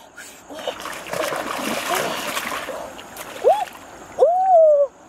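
Shallow river water splashing and sloshing as someone wades through it, followed near the end by two short pitched cries, the second longer, rising and then falling.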